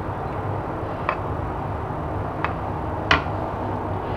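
Three light taps of a wooden spatula as fried rice is pressed into a bowl, the last the loudest, over a steady low hum.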